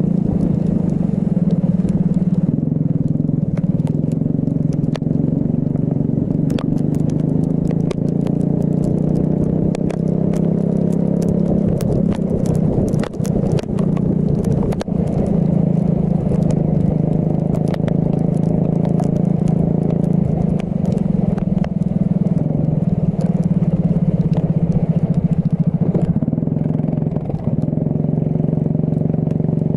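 Racing kart engine running at speed, its pitch falling and rising again as the throttle comes off and goes back on through the corners, with scattered clicks and crackles, thickest around the middle.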